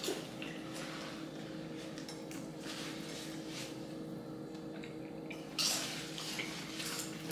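Steady low hum with faint handling noises at a kitchen counter, and one short louder rustle or clatter about five and a half seconds in.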